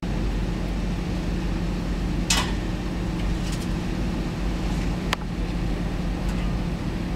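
A vehicle engine idling steadily, with a brief rustling scrape about two seconds in and a single sharp click about five seconds in.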